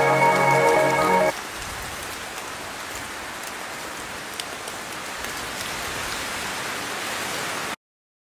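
Recorded rain falling steadily with scattered faint drop ticks. Ambient music with held tones plays over it for the first second or so and then cuts off, and the rain stops abruptly near the end.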